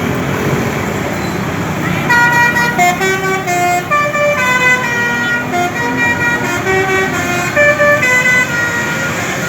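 Basuri multi-tone bus horn (telolet) playing a melody of short held notes that step up and down, starting about two seconds in and stopping shortly before the end, over a steady low rumble.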